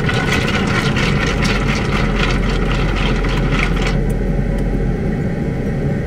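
Vehicle engine idling steadily, heard from inside the cab as a low hum. For about the first four seconds a scratchy, crackling rustle sits on top of it.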